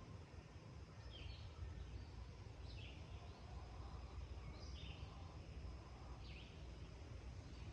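A bird repeating a short call that slides down in pitch, four times at fairly even spacing, faint over a steady low rumble.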